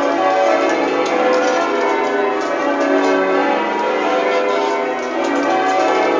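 A ring of twelve tower bells, tenor 42-2-25 in B, change ringing: the bells strike one after another in quick succession, their tones overlapping in a continuous peal.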